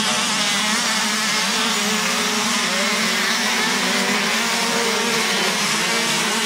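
Several youth motocross bikes racing together, their engines buzzing at once with pitches that rise and fall as the riders open and close the throttle.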